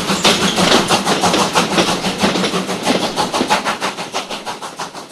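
Steam locomotive running, its exhaust chuffing in a fast, even rhythm of about five beats a second, fading away through the second half.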